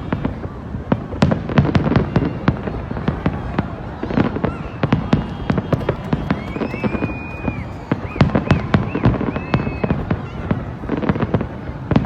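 Fireworks display: a dense, continuous series of bangs and crackles, with a few high whistles about halfway through.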